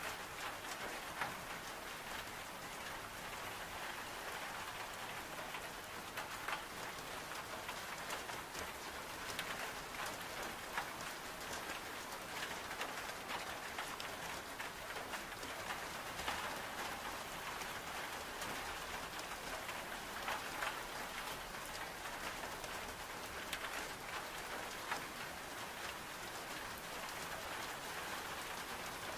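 Steady rain on window glass, with scattered sharp crackles of a wood-burning stove.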